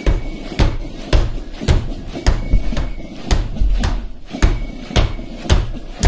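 Soldiers' boots stamping in unison while marching in step, about two heavy, even footfalls a second.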